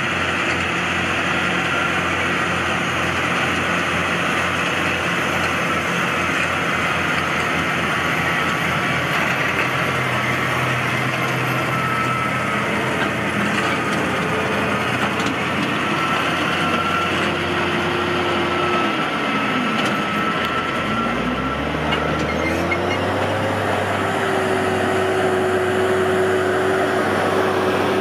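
A New Holland T7.220's six-cylinder diesel engine running steadily under load, pulling a Claas Cargos 9500 forage wagon while its pickup gathers cut grass. About two-thirds of the way through, the engine's pitch sags and then climbs back up.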